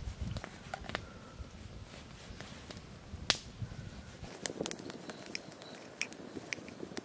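Fresh wild mushroom being torn apart by hand on a wooden board: small crisp snaps and crackles, with one sharper click about three seconds in and a quicker run of clicks near the end.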